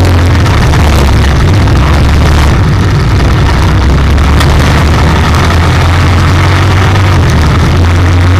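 IMCA stock car's V8 engine running loud and fairly steady, heard from inside the car's cabin, its low note holding without big rises or drops.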